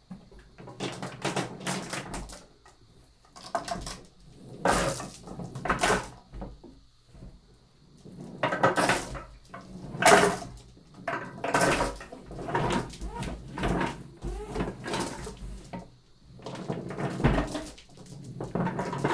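Dozens of paint-covered marbles rolling over paper in a large wooden tray as it is tilted back and forth. They clatter against each other and knock into the wooden frame in repeated surges every second or two.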